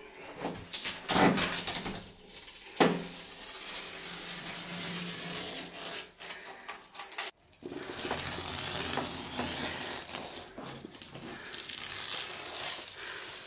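Masking tape being peeled off a freshly painted wall, a long crackling tearing noise with a short break about seven seconds in.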